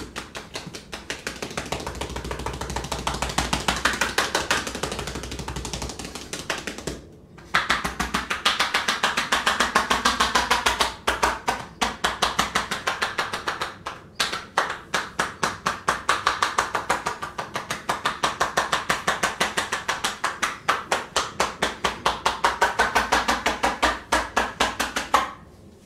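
Hands slapping and chopping rapidly on a body in a hard percussive massage: long runs of quick, even strikes, with a short break about seven seconds in and a stop near the end.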